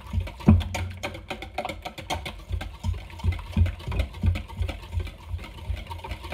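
A utensil beating eggs, heavy whipping cream and mayonnaise in a stainless steel mixing bowl, clicking and tapping against the metal about three times a second with dull low knocks.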